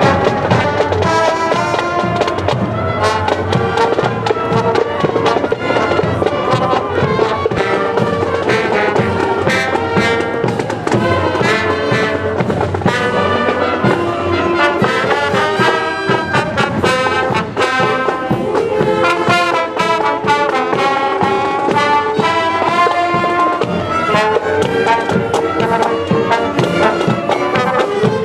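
Marching band of saxophones, trombone and clarinets playing a tune as it marches by.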